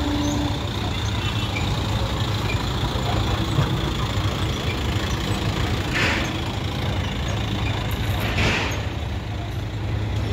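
Idling trucks and road traffic: a steady low engine rumble, with two short hisses about six and eight and a half seconds in.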